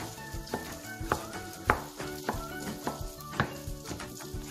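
Chef's knife chopping raw bacon on a wooden cutting board: a string of irregular sharp knocks as the blade strikes the board, with soft background music.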